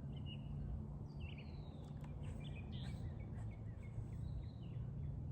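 Birds chirping and calling, with many short chirps and falling whistles scattered throughout, over a steady low background rumble.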